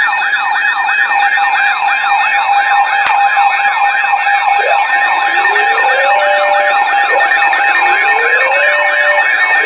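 Several electronic sirens sounding together: a fast yelp sweeping up and down about three times a second over a steady tone, joined from about halfway through by slower, lower rising whoops.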